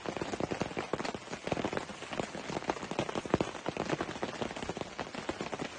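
Rain falling on a tent, heard from inside: many small drops strike the fabric in quick, irregular succession.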